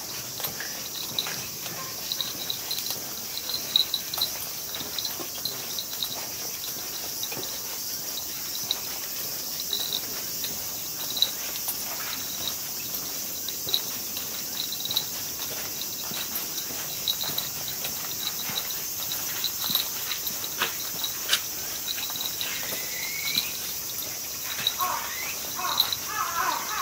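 Steady chorus of insects with a pulsing high buzz, over scattered footsteps on a gravel path. A bird chirps several times near the end.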